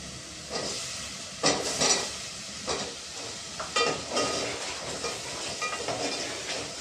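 Potatoes added to onion-tomato masala frying in oil in a steel pot, sizzling as they are stirred, with several scrapes and clinks of the metal spoon against the pot; one clink about four seconds in rings briefly.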